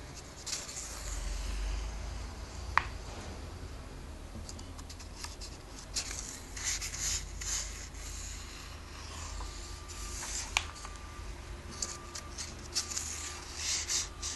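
Glossy comic-book pages being turned and pressed flat by hand, the paper rustling and rubbing in short bursts, with two sharp taps.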